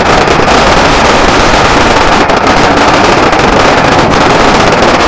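A string of firecrackers going off in rapid, unbroken succession: a loud, dense crackle with no gaps.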